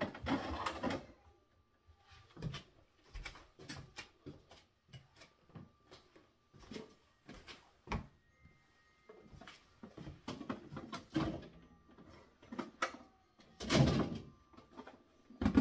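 Clear plastic storage bins and food containers being set down and slid onto refrigerator shelves: a series of light knocks and clatters, with louder knocks about a second in and near the end.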